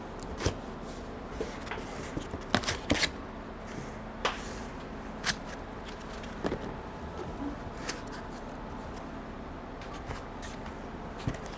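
Irregular clicks and knocks of inserts being pulled out of an air cart's meter housing and handled, about ten sharp taps spread over the stretch, over a faint steady hum.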